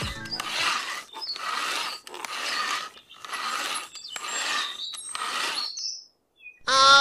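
Saw blade sawing back and forth in about six even rasping strokes, roughly one a second, stopping shortly before the end.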